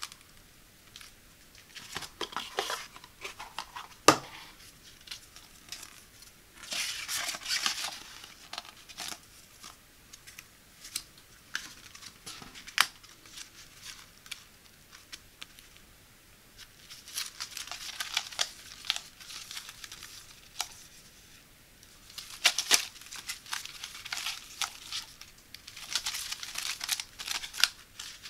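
Foil sachets of gold eye patches crinkling as they are handled and shuffled, in several bursts with quieter gaps between, and a few sharp clicks.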